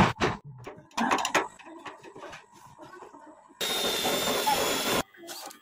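A few knocks and clicks of handling, then a 10.8 V cordless drill boring through thin sheet metal for about a second and a half, cutting off suddenly.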